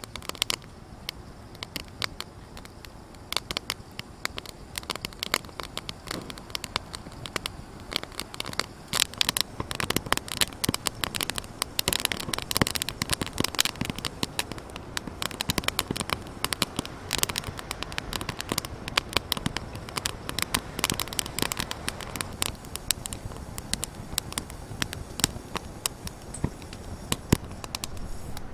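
Campfire crackling, with dense, irregular sharp pops and snaps over a low steady hiss.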